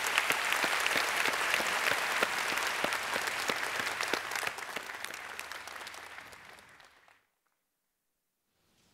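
Large audience applauding, a dense patter of many hands that dies away from about five seconds in and stops about seven seconds in.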